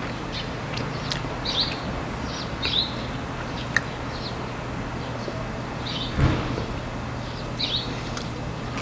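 Small birds chirping in short calls at irregular intervals, over a steady low hum, with one short thump about six seconds in.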